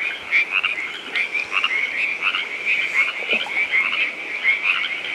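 Dense chorus of frogs: many short, high chirping calls overlapping without a break.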